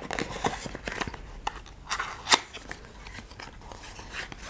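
Small cardboard box being slid out of an advent calendar's slot and handled: irregular scrapes and rustles of paperboard, with a sharper click a little after two seconds in.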